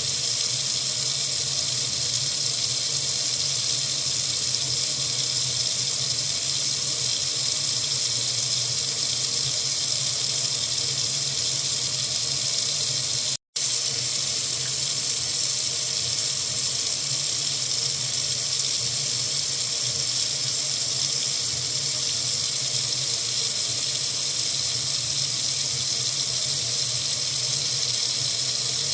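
Water running steadily from a faucet into a sink, an even high hiss. It cuts out for an instant about halfway through.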